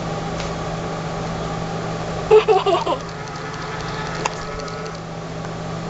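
Electronic Winnie the Pooh talking plush playing a short recorded voice clip through its small speaker about two seconds in, triggered by squeezing its tummy, over a steady low hum; a single click follows a little later.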